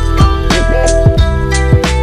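Background music with a steady beat: drums about twice a second over a bass line and sustained chords.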